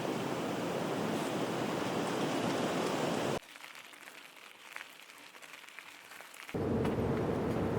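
Steady rushing of water, cut off abruptly a little over three seconds in. A much quieter stretch with scattered faint ticks follows. At about six and a half seconds a loud steady rush returns, now with a low steady hum in it.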